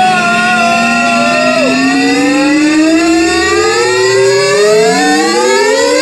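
Electronic dance music build-up: a synthesizer tone with many overtones sliding slowly and steadily upward in pitch like a siren, with a steady high tone held above it.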